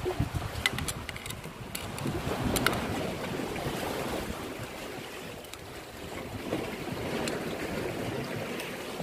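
Wind buffeting the microphone over the wash of sea waves, with a few sharp clicks in the first three seconds.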